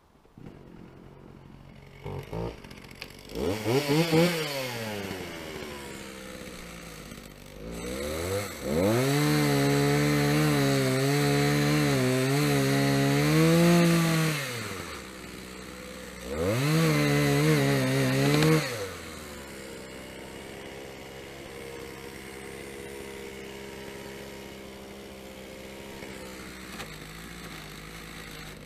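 Chainsaw starting up about two seconds in and revving up and down, then running at full throttle for about five seconds as it cuts into a birch trunk. It revs once more for about two seconds, then drops back to a steady idle.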